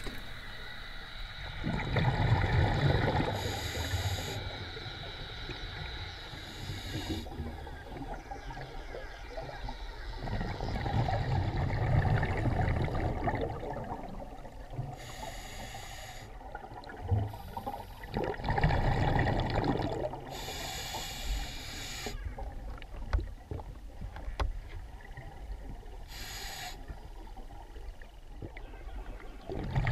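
Scuba diver breathing through a regulator underwater, heard through a camera housing. Long rumbling bursts of exhaled bubbles come every several seconds, with short hissing inhalations between them.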